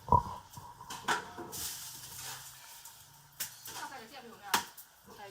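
A few sharp knocks and clinks of kitchen utensils and dishes, the loudest right at the start and others spaced a second or more apart, with quiet talk in between.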